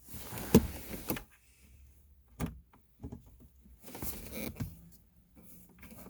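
Hands working a car's gear shifter assembly and its plastic fittings into place: rustling with several sharp plastic clicks and knocks, the loudest about half a second in.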